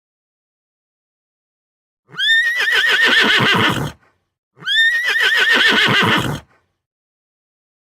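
A horse whinnying twice. Each whinny is a high, rapidly quavering call lasting nearly two seconds, starting about two seconds in and again about two and a half seconds later.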